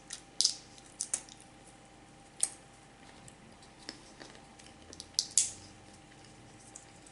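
Typing: irregular light clicks and taps, with a couple of louder ones about half a second in and again a little after five seconds.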